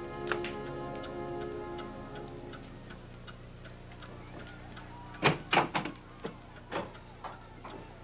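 Soft background music fades out over the first couple of seconds while a steady ticking runs underneath. About five seconds in come two sharp, loud thumps, followed by lighter thumps about every half second.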